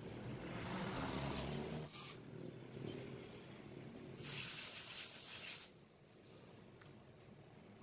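A short hiss of spray lasting about a second and a half, a little past the middle, after a stretch of low handling noise.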